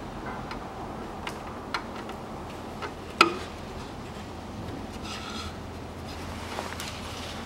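A hand fumbling a plastic oil hose into a filler hole on the underside of a car: light rubbing and scattered small clicks, with one sharper knock about three seconds in, over a low steady hum.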